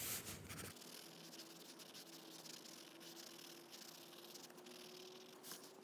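Near silence: faint room tone with a faint steady hum.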